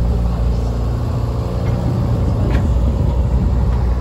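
Diesel engine of a replica cable tram running steadily as the tram passes close by. A rougher rumble swells about one to three seconds in.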